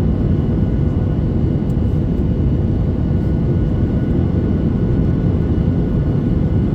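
Airliner jet engines and airflow heard from inside the cabin: a loud, steady rumble with a faint whine held on a few fixed pitches above it.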